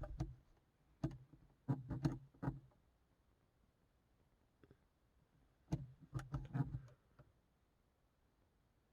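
Small plastic push-buttons on a car's overhead clock clicking as they are pressed to set the time, in several short groups of clicks with pauses between.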